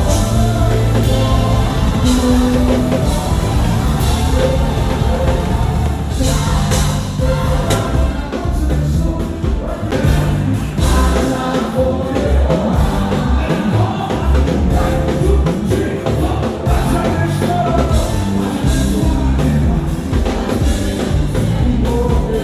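Live band music driven by a drum kit played busily, with frequent hits and cymbal crashes over bass and singing.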